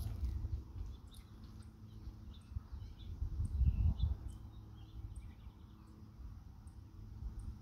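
Wind rumbling on the microphone, strongest in a gust about halfway through, with birds chirping in the background.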